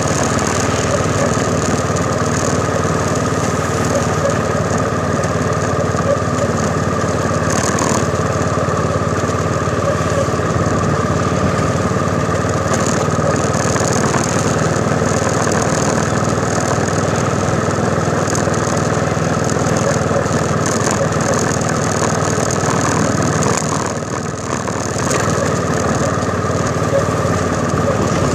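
Motorcycle engine running steadily under way, picked up by a phone clamped in a handlebar holder, with road noise around it. The engine note eases briefly about three-quarters of the way through, then picks up again.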